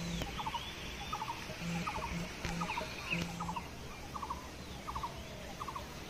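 A repeated animal call: a short rapid trill of three or four notes, given over and over about every three quarters of a second, with fainter chirps higher up.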